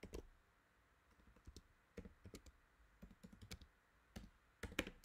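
Typing on a computer keyboard: soft, irregular keystrokes entering a command. The clicks come in small runs, with the loudest few a little before the end.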